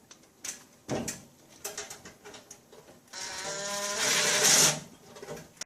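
A few light clicks of metal on metal, then a power driver runs steadily for about a second and a half, spinning the screw of a stainless worm-drive hose clamp to tighten it.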